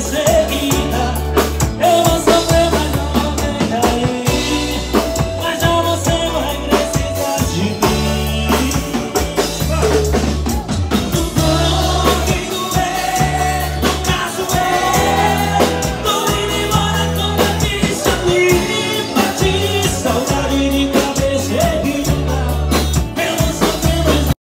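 Live music: singing over an acoustic guitar with a steady, heavy bass and drum beat. It cuts off suddenly at the very end.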